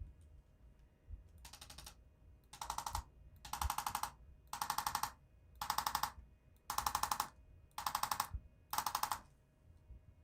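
Handheld chiropractic adjusting instrument firing eight short bursts of rapid clicking taps, each about half a second long, evenly spaced about a second apart. It is giving a low-force spinal adjustment that loosens a misaligned joint without manual cracking.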